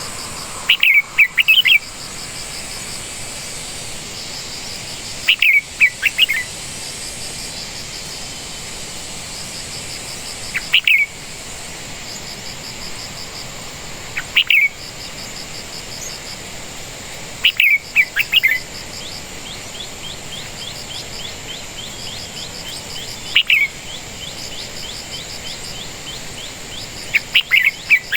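A bird giving short, sharp, downward-slurred calls, one to four at a time, repeated every four to six seconds, over a steady high drone and pulsing trill of insects.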